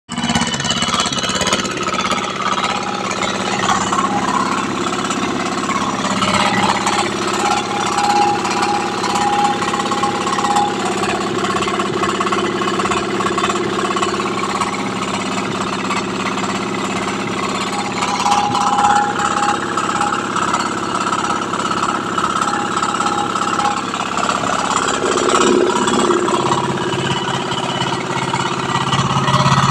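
Air-cooled diesel engine running steadily at low speed.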